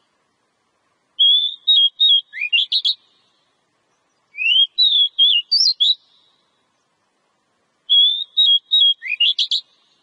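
Oriental magpie-robin (kacer) singing: three short phrases of clear whistled notes with quick rising sweeps, separated by a second or so of silence.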